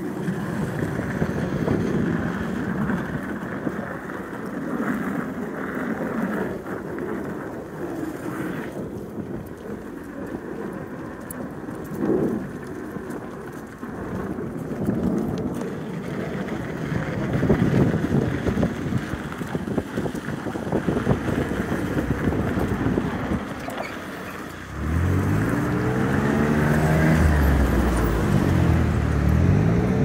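Rolling noise of an electric unicycle's tyre on a gravel trail. About 25 seconds in it changes to a loud pitched buzz that rises and falls twice as the tyre runs over the evenly spaced boards of a wooden deck.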